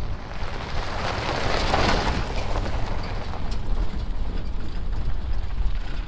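An SUV drives past on a gravel road, its engine and tyres crunching over the gravel, rising to a peak about two seconds in and then fading. Wind rumbles on the microphone throughout.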